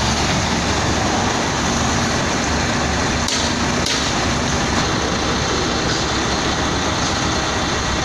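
Heavy diesel engine of a UD Trucks concrete mixer truck running steadily at low revs, a deep even rumble that cuts off sharply at the end.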